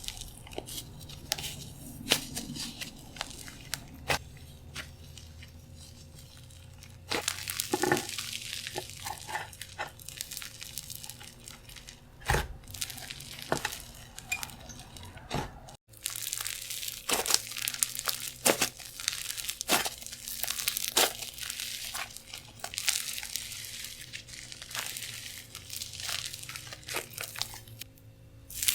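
Clay slime being pressed, poked and stretched by hand, giving sticky crackles and small pops. The sound breaks off for a moment about 16 seconds in, then the crackling carries on.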